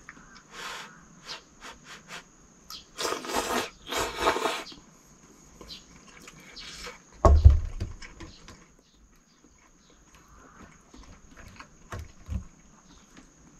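Instant ramen noodles being slurped twice in quick succession, with light clicks of a utensil against a titanium cup. A single heavy thump about seven seconds in is the loudest sound.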